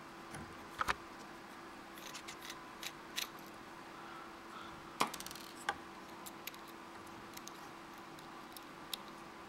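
Small precision screwdriver working the tiny screws out of a DJI Phantom 2 Vision+ gimbal's aluminium back cover: scattered light metallic clicks and scrapes at irregular intervals, over a faint steady hum.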